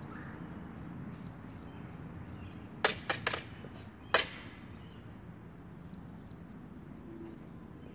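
Fist stick noise maker struck: three sharp cracks in quick succession about three seconds in, then a fourth, the loudest, about a second later.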